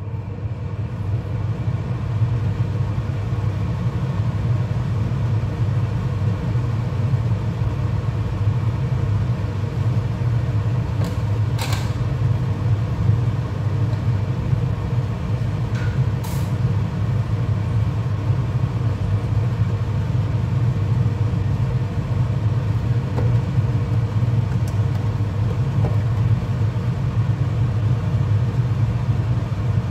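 Steady low rumble from the gas hob as an empty wok heats on it, with a faint click about 12 seconds in and another about 16 seconds in.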